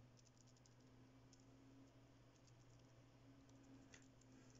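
Near silence with faint, scattered light clicks of a 3D-printed plastic ball bearing with airsoft BBs as balls, handled and turned in the fingers, over a faint steady hum.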